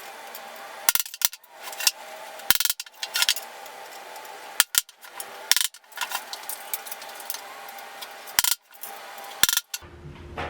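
Sharp metallic taps and clinks, about a dozen at irregular intervals, each with a short ring, as steel T-nuts are set into the drilled holes of a plywood seat base.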